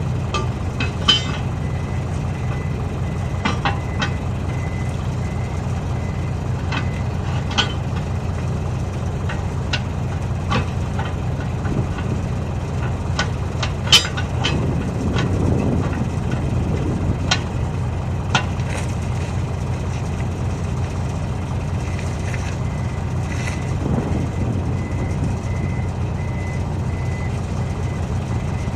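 A heavy engine idling steadily, with scattered sharp knocks and clanks from tyre-changing work on a wheel loader, the loudest about halfway through.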